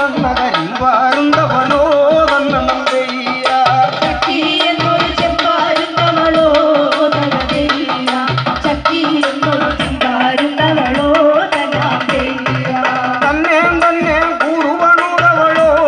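Live folk music: a drum beating a steady rhythm under a wavering sung melody, amplified through a PA.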